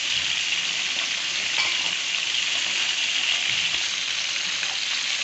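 Whole quail frying in hot oil in a pan: a steady sizzle with a few faint pops.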